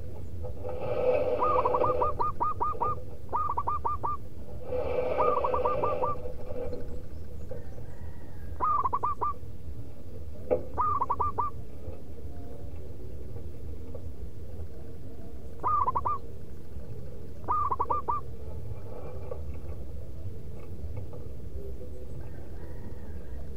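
Zebra dove (perkutut) cooing: several phrases of quick, short, curved notes, the phrases coming further apart after the first few seconds. A steady low hum runs underneath.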